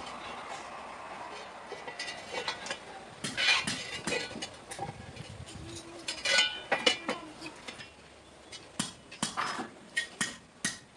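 Metal tools and iron pieces clinking and clattering against each other at irregular moments, some strikes ringing briefly.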